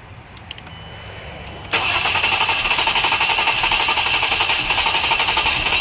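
2011 Jeep Grand Cherokee's 3.6-litre V6 turning over on the starter without firing, coming in suddenly a little under two seconds in and cranking steadily, after a few light clicks. It is a crank-no-start: several ignition coils are getting no spark, and the coil connector shows no power or ground.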